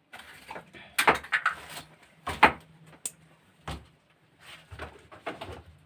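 Short, sharp clicks and knocks, about five or six of them, as the ball bearing taken from a 12-volt battery sprayer pump motor is handled and turned by hand close to the microphone. The bearing has been making a noise, but its own running sound is very faint.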